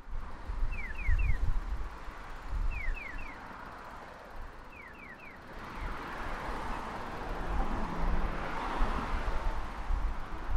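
Road traffic passing on the bridge, swelling about halfway through, with wind gusting on the microphone. In the first half, a short high falling chirp sounds three at a time, repeating about every two seconds.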